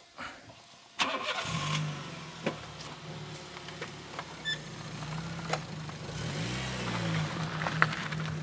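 A car engine starts about a second in and then runs steadily, its pitch briefly rising and falling near the end.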